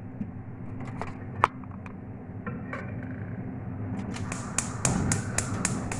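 Gas hob's spark igniter clicking rapidly, about four to five clicks a second, starting about four seconds in, over a steady low hum. A few scattered knocks come before it.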